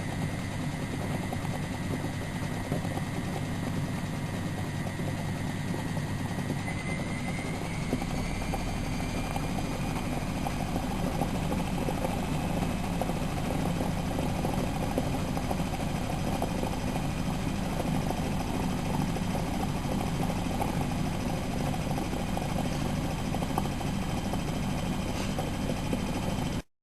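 Miele Novotronic W914 washing machine running, with a steady motor whine that rises in pitch about seven seconds in as a deeper rumble sets in.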